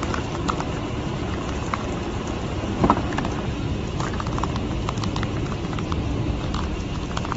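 Steady low rumble of a car's engine running, with a few faint ticks and one sharper click about three seconds in.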